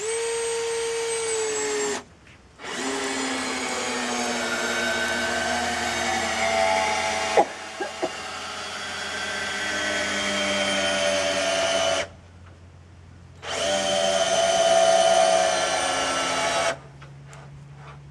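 Cordless power drill running in three long bursts, its motor whine dropping in pitch as it bogs under load while boring or driving into timber. A few sharp clicks about midway.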